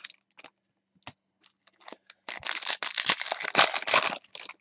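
Foil trading-card pack wrapper being torn open and crinkled by hand: a few light clicks and rustles, then about two seconds of dense crinkling about halfway through.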